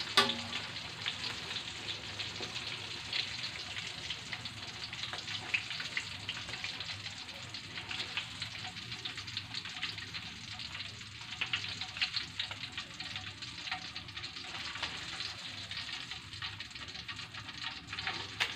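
Chicken pieces frying in hot oil in a steel wok: steady sizzling with many small crackling pops throughout.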